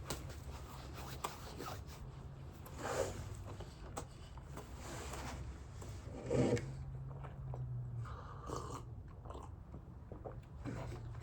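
A person biting and chewing a jelly-filled glazed donut close to the microphone, with small wet mouth clicks and a couple of louder moments of chewing.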